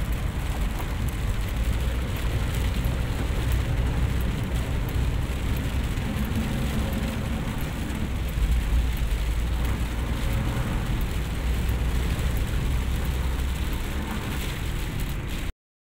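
Steady road noise inside a car driving in heavy rain: a low rumble of engine and tyres on a wet, flooded road, with rain on the windscreen. It cuts off suddenly just before the end.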